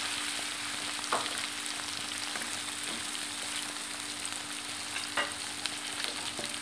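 Sliced courgettes sizzling in hot olive oil in a pan, a splash of water just added, with a steady hiss. A wooden spatula stirs through them, scraping a couple of times, over a steady low hum.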